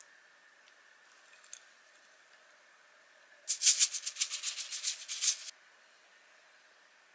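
A quick, dry rattle of rapid strokes, about eight a second, lasting about two seconds and starting a little past the middle.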